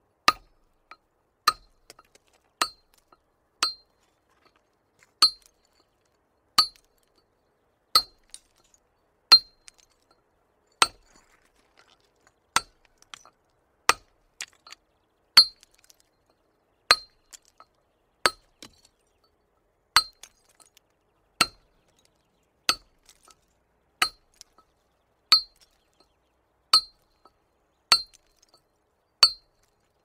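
Small hammer striking stone in single, evenly spaced blows, about one every second and a half. Each strike is a sharp clink with a brief ring.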